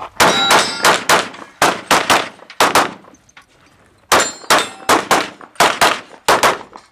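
Rapid handgun fire in a practical shooting stage: about seventeen shots, mostly in quick pairs, in two strings with a pause of about a second between them.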